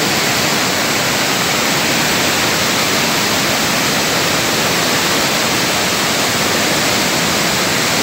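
Waterfall rushing: a loud, steady hiss of falling water with no break.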